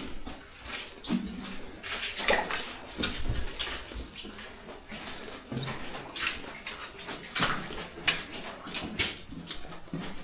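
Footsteps splashing and scuffing through shallow water on a slate mine floor, in uneven steps with sharp splashes.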